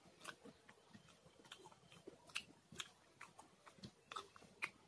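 Faint, irregular wet clicks and smacks of a person chewing food with the mouth, along with fingers working rice and food on a plate.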